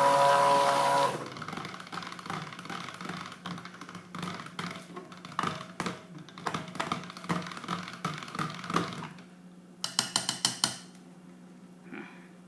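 Stick blender motor running in soap batter, cutting off about a second in. Then a spatula scrapes and clicks against the mixing container as the batter is stirred by hand, ending in a quick run of sharp taps.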